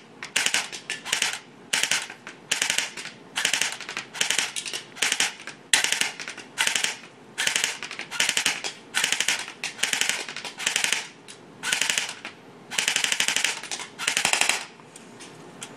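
Electric airsoft gun, a Matrix RDW PDW, firing over twenty short full-auto bursts in a row, each a rapid clatter of shots. A couple of longer bursts come near the end. It is running on a partly charged 9.6-volt battery.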